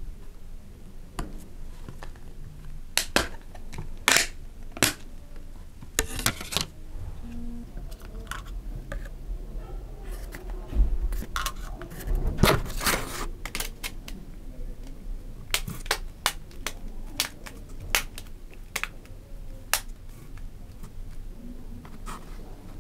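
Hands handling a Fairphone 5 smartphone and its cardboard box: a string of sharp clicks and taps, with a few short rustling scrapes.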